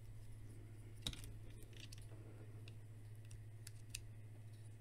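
Faint, scattered clicks of a Transformers Cyberverse Slug figure's plastic parts being handled and pushed into place, with one sharper click about a second in. A low steady hum sits underneath.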